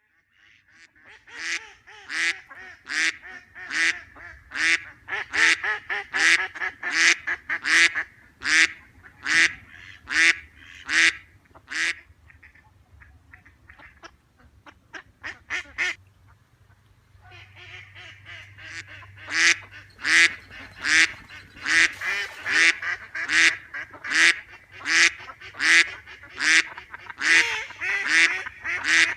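Duck quacking over and over in a run of loud quacks, about one and a half a second. The quacks drop to a few softer ones around the middle, then pick up again.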